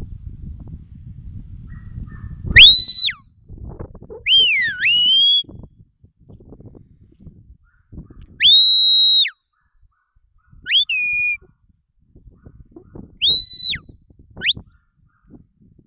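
Shepherd's whistle giving commands to a working sheepdog: six short whistles, three held on one high steady note, one swooping down and back up, and two quick rising flicks. Wind rumbles on the microphone before the first whistle.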